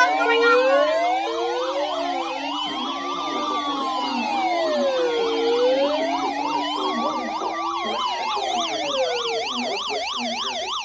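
Several electronic sirens sounding at once: slow rising-and-falling wails overlapped with fast yelps and a low warble.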